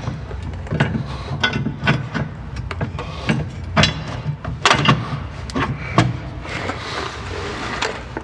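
About a dozen irregular knocks and clicks of tools and parts being handled during assembly work on a car's front subframe, over a steady low hum.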